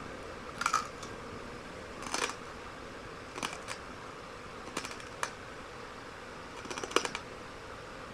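Broken light-bulb glass crunching between teeth as it is chewed: short crackling crunches, about six of them, coming every second or so.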